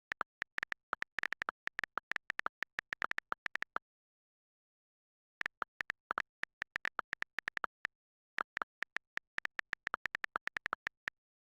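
Rapid, irregular sharp clicks in three runs of a few seconds each, with dead silence between the runs.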